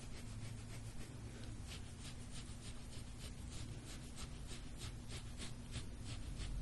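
Soft-tissue scraping tool drawn over a patient's skin in quick, short, repeated strokes, about three a second, over a steady low hum.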